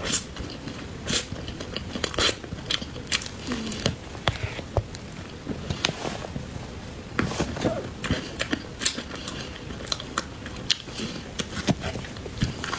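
Close-miked eating sounds: a person biting and chewing cream cake, with many small irregular mouth clicks.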